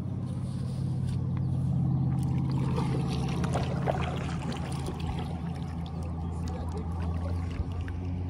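A small boat motor humming steadily as the kayak moves forward, with light water splashing and ticking against the hull.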